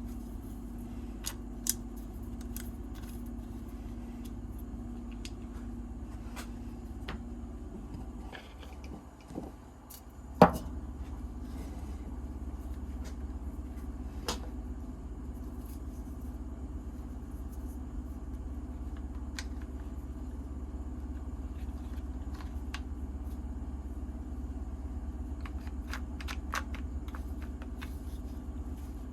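Small clicks and scrapes of the metal and plastic parts of a quick-grip bar clamp being fitted back together by hand, with one sharp knock about ten seconds in, over a steady low hum.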